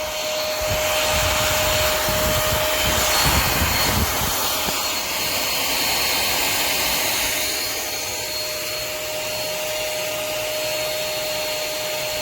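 Cordless stick vacuum cleaner running steadily, a constant whine over a rushing hiss, with a few low bumps early on. It gets a little quieter about two-thirds of the way through.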